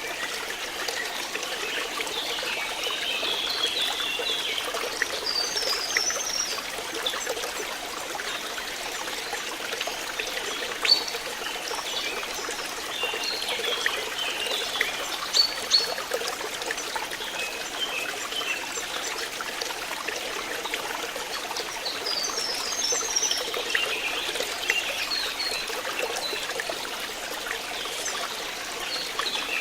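Water flowing and trickling steadily, as in a small stream. Clusters of short high chirps come and go, and a few sharp clicks stand out around the middle.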